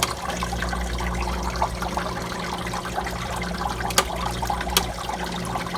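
Manitowoc ice machine running in its freeze cycle: water trickling steadily over the evaporator under a constant low hum from the refrigeration system, near the point of switching to harvest. Two sharp clicks about four and five seconds in.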